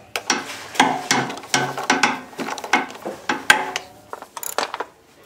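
Socket ratchet clicking in quick, uneven bursts as the carburetor mounting nuts on a small generator engine are run down and tightened.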